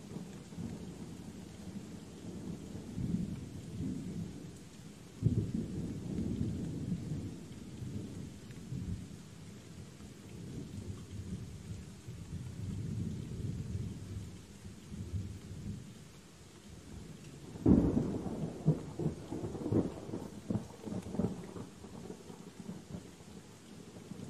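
Steady rain with rolling thunder rumbling. A sharp thunderclap comes about five seconds in and a louder one about eighteen seconds in, each trailing off into crackling rumbles.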